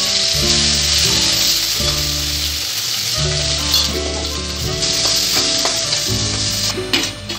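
Chopped onions sizzling loudly in hot oil in a kadai as they are stirred with a spatula, the frying hiss dying down a little near the end.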